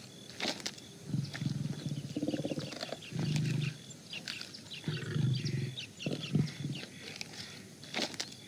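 Tiger growling in about five short, low, pulsing rumbles, each under a second, with scattered sharp clicks between them.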